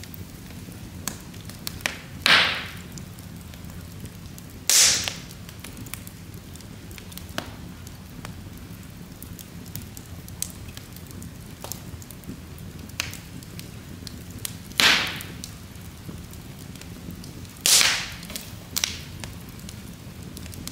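Wood logs burning in an open fireplace: a steady low rumble of flames with frequent small crackles and four loud, sharp pops, each dying away over a fraction of a second.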